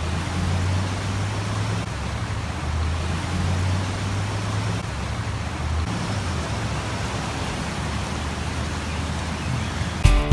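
Steady rush of a swollen, flooding river under a low drone of road traffic, the drone weakening after about six seconds. Guitar music cuts in right at the end.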